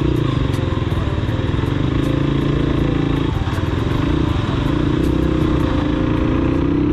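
Dirt bike's engine pulling away and accelerating, its pitch climbing as it speeds up, dropping at a gear change about halfway through, then climbing again.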